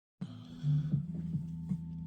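Background music with low, steady bass notes that change pitch, starting just after the opening.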